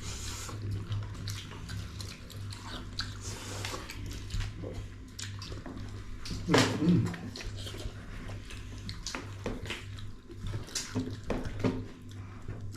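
Eating sounds at close range: scattered small clicks and clinks of hands, spoons and plates over a steady low hum, with one louder short sound about six and a half seconds in.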